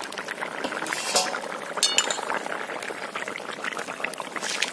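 Thin fish curry bubbling at the boil in a wok over a fire, stirred with a spatula. A few sharp metallic clinks come from metal against the pan, one near the middle ringing briefly.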